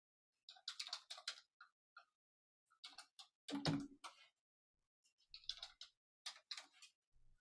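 Computer keyboard keys clicking in short irregular bursts of a few keystrokes each, with a soft low thump about halfway through.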